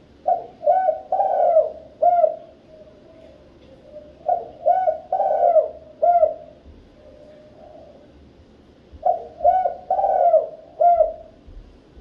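Spotted dove cooing: three phrases about four seconds apart, each a run of four short notes lasting about two seconds, the third note the longest.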